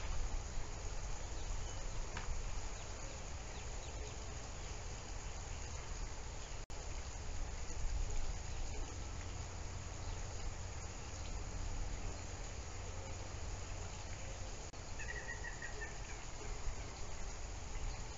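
Steady outdoor background noise with a low rumble. A short chirping call sounds about fifteen seconds in.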